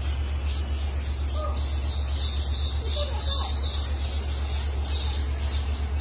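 Small caged songbirds chirping rapidly in alarm as a hornbill attacks their cage: a fast, even run of short high-pitched calls, about three a second. A steady low hum runs underneath.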